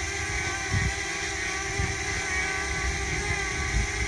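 DJI Mini quadcopter drone hovering, its four propellers giving a steady whine made of several close tones, each propeller heard individually rather than as a gurgling interference beat, with small shifts in propeller speed.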